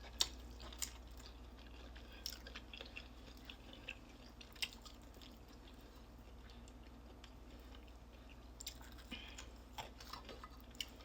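Close-up chewing and biting of fried chicken, with scattered sharp crunches and mouth clicks over a steady low hum.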